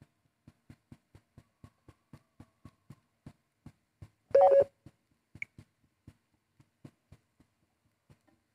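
A short, loud electronic beep about four seconds in, lasting about half a second, over faint low ticks repeating about three times a second.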